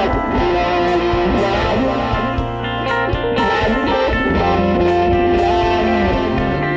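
Background music led by electric guitar, with a bass line and sustained notes.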